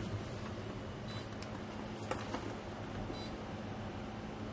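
Quiet room tone: a steady low hum, with a few faint clicks and faint short high beeps about every two seconds.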